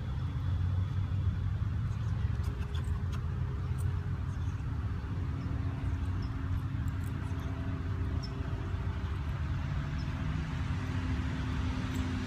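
Steady low outdoor rumble with a few faint high ticks and chirps scattered through it.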